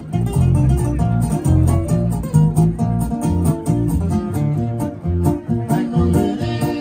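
Live band playing: guitar and bass guitar over a steady beat.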